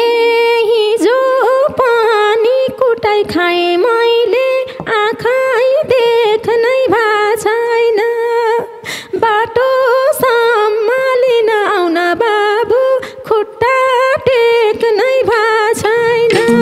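One ornamented melody line without drums or chords, in Nepali folk style, bending and sliding between notes in short phrases.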